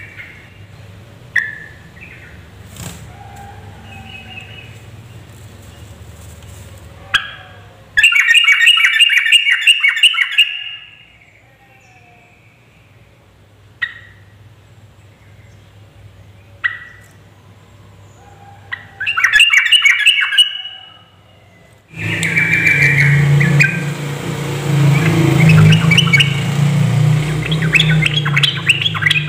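Yellow-vented bulbul (trucukan) calling and singing. A few single short calls are broken by two bursts of rapid chattering song, and a longer continuous bout of song begins about two-thirds of the way in.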